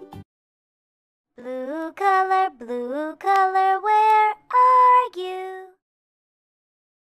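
A short sung jingle in a high, child-like voice: several held notes with small glides in pitch, lasting about four seconds and starting about a second and a half in.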